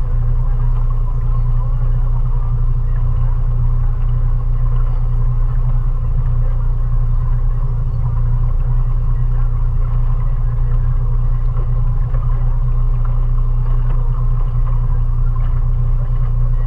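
20 hp Mariner outboard motor running steadily, pushing a small cruiser along under way, a constant low hum with no change in speed.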